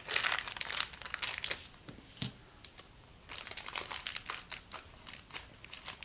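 Thin plastic toy wrapper crinkling as it is handled, in two spells: a dense one for about the first second and a half, then quieter crackling for the last few seconds.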